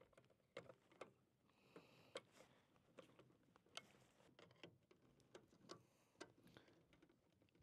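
Faint, irregular small clicks and ticks of a screwdriver and hands working at the terminal screws of a metal generator power inlet box.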